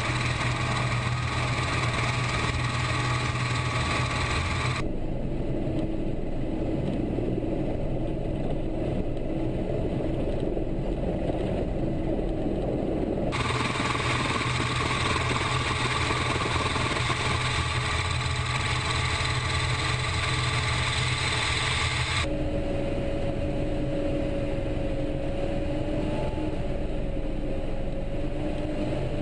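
Mi-24 helicopter's twin turboshaft engines and main rotor running steadily, with a constant low hum and a steady turbine whine, picked up by a camera mounted on the outside of the fuselage. The treble cuts out abruptly twice and comes back once, where the footage is cut between shots.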